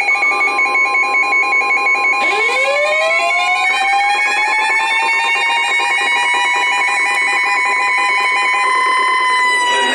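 Emergency alert tones: a rapidly pulsing two-tone alarm and a steady tone, joined about two seconds in by a siren that winds up in pitch and holds. The pulsing stops shortly before the end, and the siren begins to wind down.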